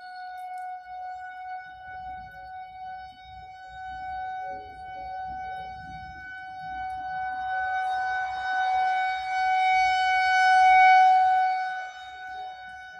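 Federal Signal 2001-130 rotating electromechanical outdoor warning siren sounding a steady alert tone, activated for a severe thunderstorm warning. The tone holds one pitch while it swells louder over several seconds as the rotating horn turns toward the listener, then drops back sharply near the end.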